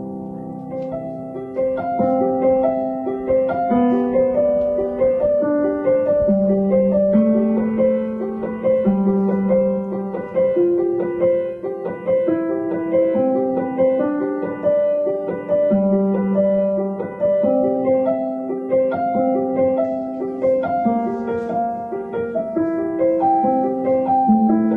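Background piano music: a gentle melody of separate notes over a lower moving line, at an even pace.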